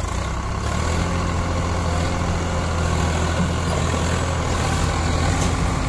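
Swaraj 744 FE tractor's diesel engine running at a steady, even pace as the tractor drives along.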